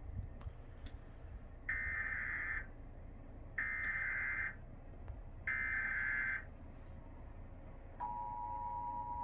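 Emergency Alert System weekly test: the SAME digital header, a harsh warbling data burst, sent three times with about a second's pause between, followed about eight seconds in by the steady two-tone EAS attention signal starting up.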